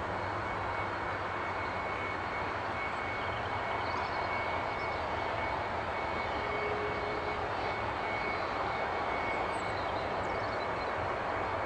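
Boeing 757 jet engine running steadily, a constant high whine over a rushing roar. Only the left engine is running; the other was shut down after a bird strike.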